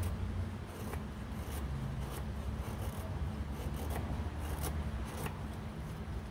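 Fixed-blade knife shaving curls down a stick of wood to make a feather stick: short scraping strokes, roughly one a second, over a low steady hum.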